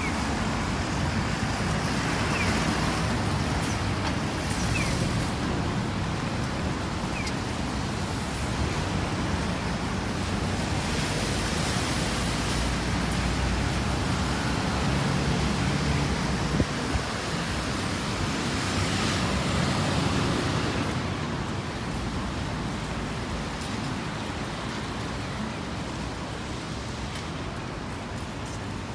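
Street traffic noise: a steady hiss of road noise, with passing vehicles swelling up and fading away a couple of times.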